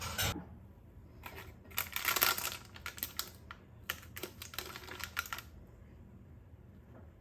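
Crisp crust of baked milk mochi crunching: a dense run of sharp, crackly crunches starting about a second in and stopping about two-thirds of the way through.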